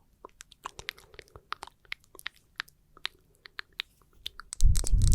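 Close-miked ASMR tactile sounds: a run of quick, soft clicks and crackles, then a much louder, dense crinkling rustle starting near the end.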